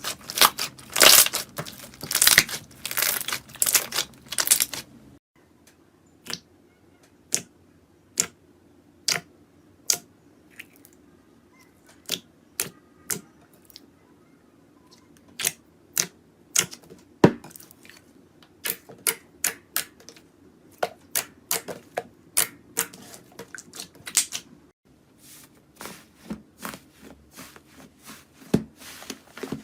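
Slime being squeezed and poked, making sharp crackling clicks and pops: dense crackling at first, then separate clicks one or two a second, growing busier near the end.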